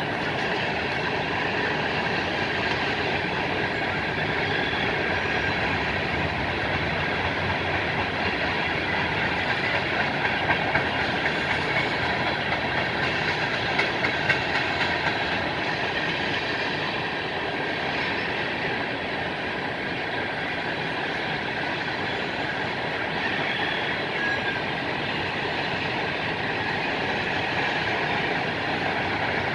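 Freight cars of a CSX train rolling past on the rails: a steady rumble and rattle of coal hoppers and a tank car. A few louder clacks come about ten to fifteen seconds in.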